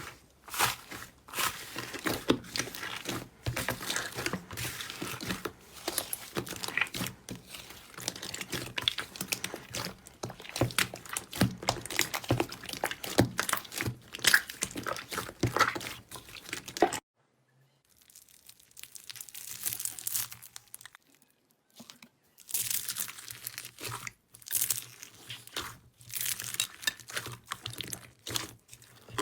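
Slime being squeezed and stretched by hand, giving a dense run of small sticky crackles and pops. It cuts off to silence for about a second past the middle, then the crackling starts again.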